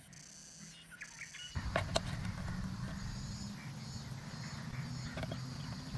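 Outdoor background: a steady low hum with insects, coming in about a second and a half in. A few light clicks from small plastic parts being handled.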